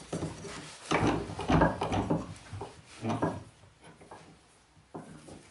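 Steel lawnmower blade being set into a cast-iron bench vise and clamped: a few metal clunks and scrapes, the loudest about a second in, and a sharp click near the end.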